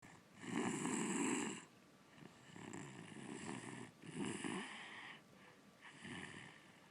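A six-year-old child snoring in her sleep. The longest and loudest snore comes about half a second in, followed by several softer snoring breaths.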